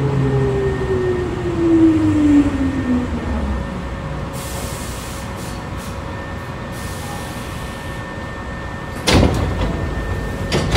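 Hankyu 3300-series resistor-control train braking: the traction motor whine falls in pitch and dies away over the first few seconds as the train comes to a stop. A high hiss of air follows, and near the end there are two loud clunks from the sliding doors.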